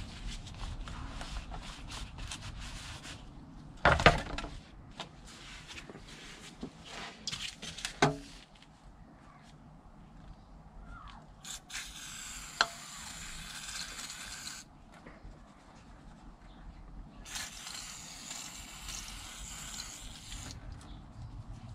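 Oily pump parts handled and knocked against a plastic tray, with two sharp clunks about four and eight seconds in. Then an aerosol degreaser sprays twice onto the vacuum pump housing, each spray a steady hiss of about three seconds.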